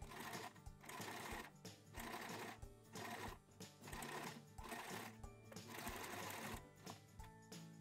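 Electric sewing machine stitching in short bursts of under a second, stopping and starting about once a second as the work is turned, over soft background music.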